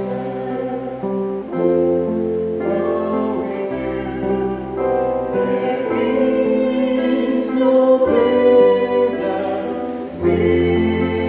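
Music: a slow song with singing over sustained chords that change every second or two.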